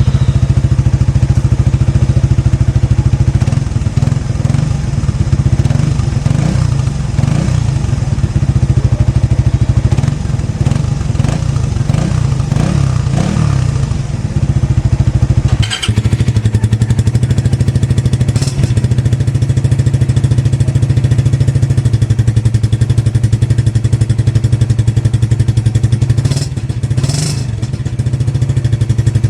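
Suzuki Raider 150 Fi's single-cylinder four-stroke engine running through its exhaust canister. For the first half it is blipped up and down repeatedly. A sudden sharp break comes about halfway through, then it settles to a steady idle with one short rev near the end.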